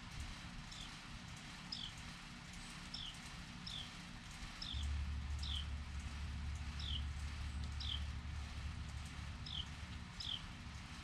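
A small bird calling over and over, each call a short high note followed by a downslurred one, about once a second. A low steady rumble comes in about halfway through and fades near the end.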